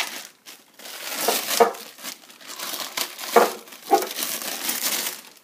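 Clear plastic wrapping crinkling as it is handled and pulled off a TV stand base: steady rustling with several louder crinkles.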